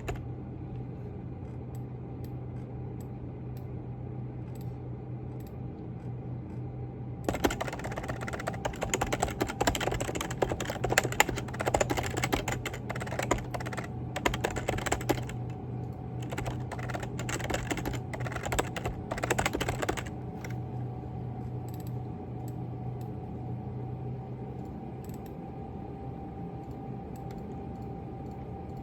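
Computer keyboard typing. There are a few scattered keystrokes at first, then a quick run of key clicks from about seven seconds in until about twenty seconds, then only occasional keys again. Under it all is a steady low hum.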